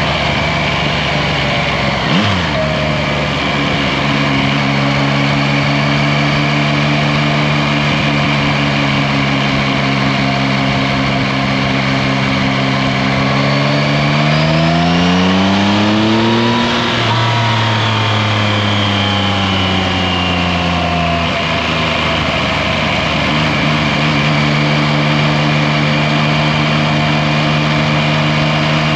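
Yamaha Tracer 9 GT's three-cylinder engine running at a steady cruise over a constant rush of road and wind noise, with a single knock about two seconds in. Past the middle the revs climb for about three seconds, drop sharply, then sink slowly back to a steady cruise.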